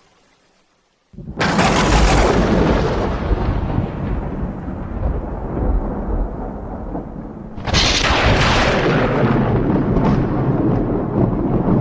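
Thunder: a sudden crack about a second in that turns into a long rolling rumble, then a second clap about two-thirds of the way through that also rumbles on.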